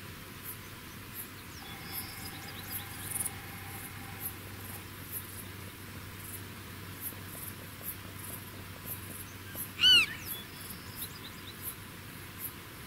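A black-tailed prairie dog gives one short, sharp call about ten seconds in, rising then falling in pitch. Under it runs a faint, regular high ticking.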